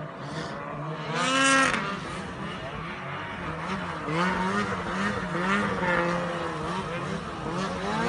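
Several snowmobile engines revving, their pitch rising and falling, with a louder rev about a second in.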